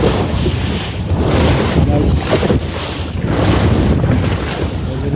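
Wind buffeting the microphone on a fishing boat at sea, over a steady low drone from the boat and the sea washing against the hull.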